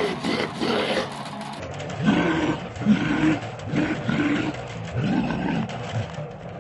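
Harsh black-metal growled vocals in a run of short, rough phrases over electric guitar.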